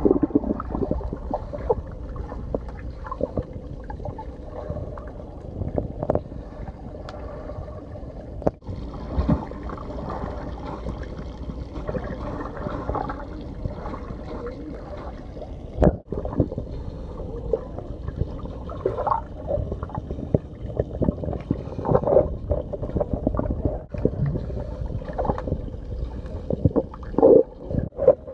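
Muffled underwater sound of a swimming pool heard from beneath the surface: water churned by swimmers and bubbling, with small sharp knocks throughout. The sound breaks off abruptly a few times, at about 8, 16 and 24 seconds in.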